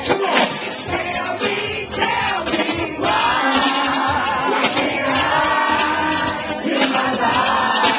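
A man singing into a handheld microphone while a crowd of voices sings along with him.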